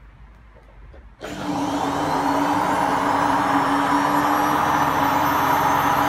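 Hotpoint WMA50 washing machine's drum motor starting suddenly about a second in and running up to speed: a loud, steady whine whose higher tones rise slowly as it gathers speed.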